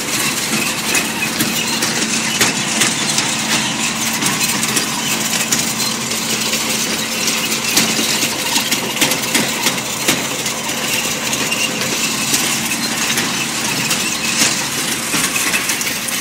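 New Holland TD85D tractor's diesel engine running steadily as it pulls a seed drill through tilled soil, under a constant clatter and clinking from the drill's metal frame, spring tines and chain drive.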